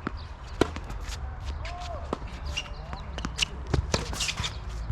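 Tennis court sounds: sharp knocks of ball hits and bounces, the loudest about half a second in, with shoes squeaking and scuffing on the court surface over a steady low rumble.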